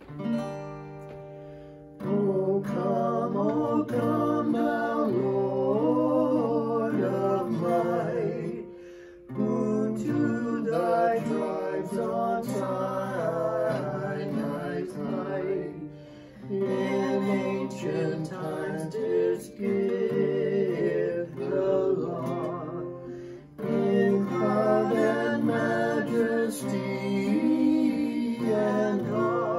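A man and a woman singing a hymn together to a strummed acoustic guitar. A guitar chord opens it, the voices come in about two seconds later, and the lines are separated by short pauses.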